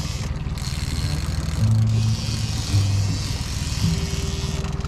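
Boat motor running steadily at trolling speed, a continuous low hum.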